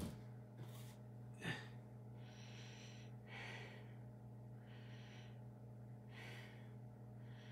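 A man breathing hard and rhythmically from the exertion of continuous push-ups, a heavy breath about every second and a half, over a steady low electrical hum. Two short knocks sound, one at the very start and one about a second and a half in.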